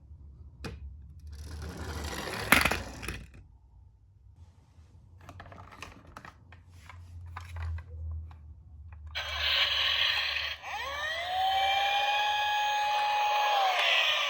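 A toy police car rolling with scraping and scattered clicks, the loudest click about two and a half seconds in. About nine seconds in, the toy's electronic siren starts wailing, its pitch gliding up and down.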